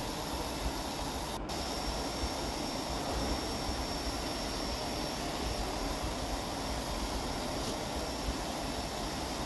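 Canister wet-and-dry vacuum cleaner running steadily as it is pushed over a rug, a constant rush of air with a faint high whine coming in about one and a half seconds in.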